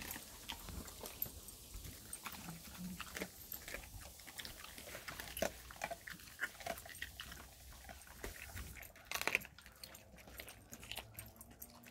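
Dogs chewing and crunching turkey necks, the bone cracking in irregular short crunches and clicks, with a louder burst of crunching about nine seconds in.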